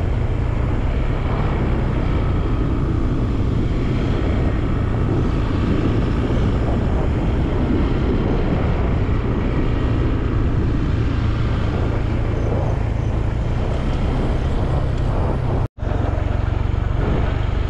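Motorcycle running along a road, with steady wind rush on the microphone over a low engine rumble. The sound drops out for an instant near the end.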